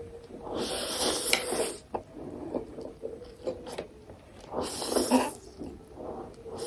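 Person slurping ramen noodles twice, each slurp a second or so long, with chewing and small mouth clicks in between.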